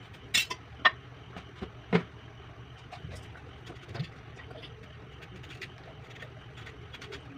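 Knife paring the skin off a green mango: a handful of short, sharp scrapes and clicks, most in the first two seconds and one more at about four seconds. A steady low hum runs underneath.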